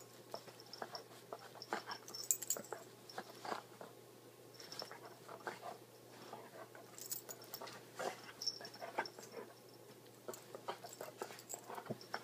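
A dog mouthing and nibbling at a kitten in play: quiet, irregular clicks, scuffs and rustles of bedding.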